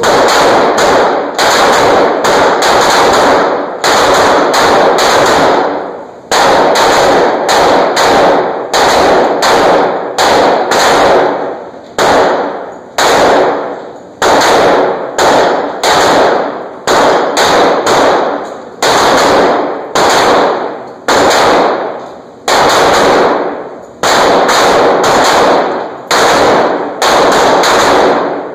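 Rapid pistol fire at steel plates, dozens of loud shots a fraction of a second to about a second apart with a few short pauses, each shot ringing out in the echo of an indoor range.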